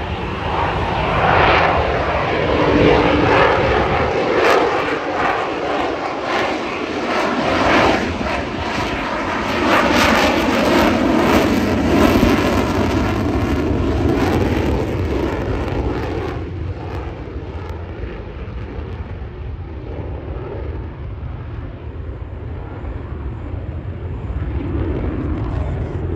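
An RAAF F-35A fighter's F135 jet engine during a display pass: loud jet noise with a rapid crackle for about the first sixteen seconds. It then drops fairly suddenly to a duller, fainter rumble as the jet climbs away into the distance.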